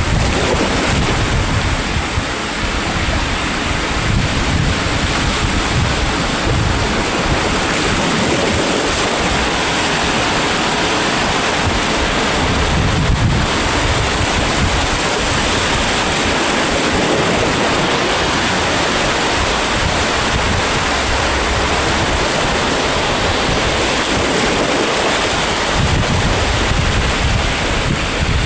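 Sea waves breaking and washing on the shore in a continuous rush, with wind buffeting the microphone in low rumbling gusts.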